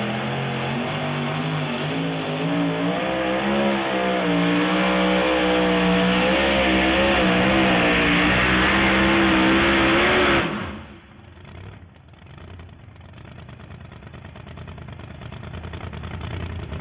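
The engine of a 6,200 lb two-wheel-drive pulling truck at full throttle down the track, its revs wavering up and down under the load of the sled. About ten seconds in the throttle comes off and the sound drops suddenly to a low rumble: the end of the pull.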